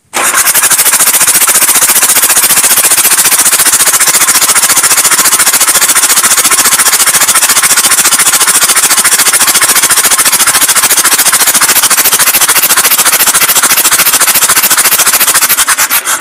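Foton diesel engine running with a loud, rapid, even clatter. The sound cuts off abruptly near the end.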